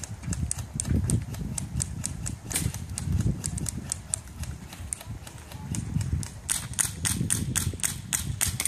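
Guns firing rapid strings of sharp pops, several a second, coming thicker for the last couple of seconds, over a low rumble.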